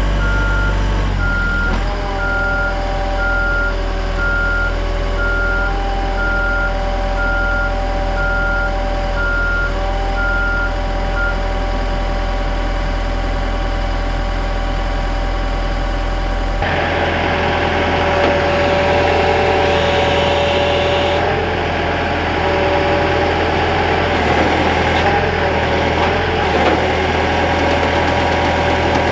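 Engine of a lift machine running steadily, with its reversing alarm beeping at an even rate while it backs up; the beeping stops about eleven seconds in. The engine sound changes abruptly about two-thirds of the way through and keeps running.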